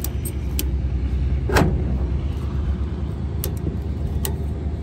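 Truck engine running with a steady low rumble, with a few sharp clicks and one louder clank about a second and a half in, as the transmission carried in the truck is tied down.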